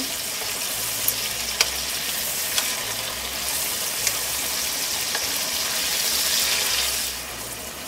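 Thin slices of marinated beef sizzling in hot oil in a pan, a steady frying hiss that grows a little louder from about halfway through. A few light clicks of metal tongs sound as the pieces are turned.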